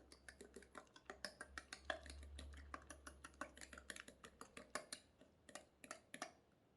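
Faint, irregular light clicks, several a second, of a utensil knocking against a bowl while egg and butter are stirred into the yeasted milk.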